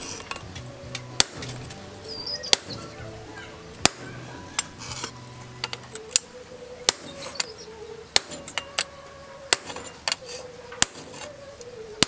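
Hammer striking a handled hot-cut chisel into a red-hot chainsaw guide bar on an anvil: sharp metallic clinks, one about every second and a quarter.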